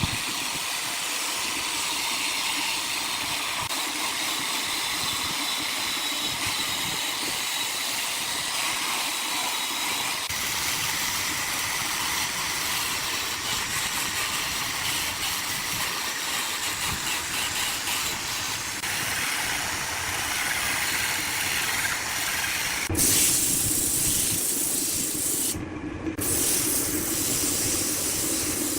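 Wood lathe work: a steady hissing noise from the spinning workpiece being worked. It turns abruptly louder and brighter about 23 seconds in and cuts out briefly a few seconds later.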